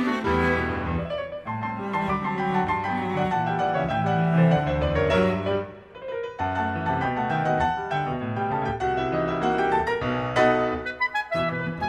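Instrumental background music: piano with bowed strings, changing note by note, dipping briefly about six seconds in.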